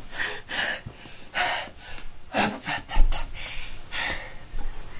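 Irregular, noisy gasping breaths from a person in the middle of a seizure who is unable to speak, with a low thump about three seconds in.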